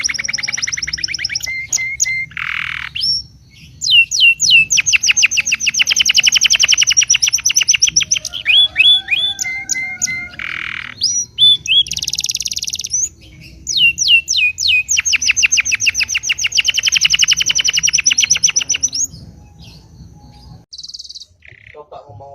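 Songbirds singing: long, fast rolling trills of rapidly repeated notes alternating with short sharp whistles and buzzy notes, the song dropping away near the end.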